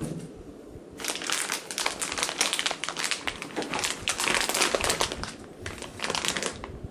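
Cat-treat bag crinkling as it is handled and rummaged through, a dense run of crackles starting about a second in and stopping near the end.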